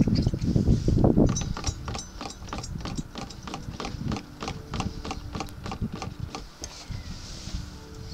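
Shaker (jiggle) siphon hose being worked up and down in the neck of a plastic diesel jerry can, its valve clicking sharply at about four clicks a second to get the diesel flowing. A low rumble is loud at the start, and the clicking stops near the end.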